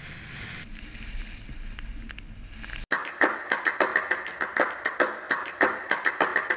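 Rushing wind-and-snow noise from riding on a helmet camera, with a low rumble, building for about three seconds. It cuts off abruptly into music: fast, rhythmic strummed acoustic guitar.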